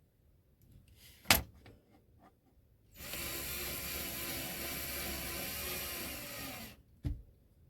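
A sharp click, then a cordless drill/driver running steadily for almost four seconds, driving a self-tapping screw into a wooden cabinet door, then stopping, followed by another click.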